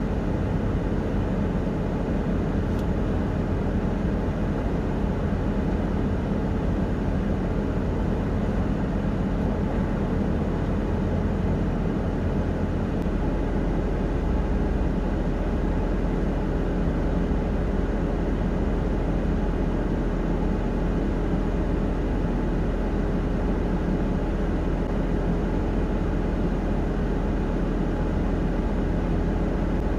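A vehicle engine running steadily at idle, a continuous low rumble with no cranking or revving.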